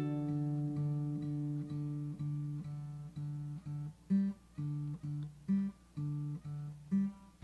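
Background music: acoustic guitar plucking a repeating pattern of notes, with short pauses between some phrases.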